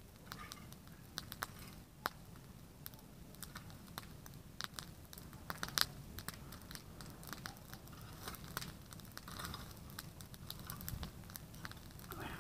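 A heap of dry, cut raspberry canes burning in the open and crackling with irregular sharp pops. The loudest pop comes a little before halfway.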